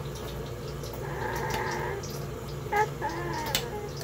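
Short, high-pitched wailing cries in the background, one stretch about a second in and more near the end, with a sharp clink of a spoon against the slow-cooker crock near the end and a steady low hum underneath.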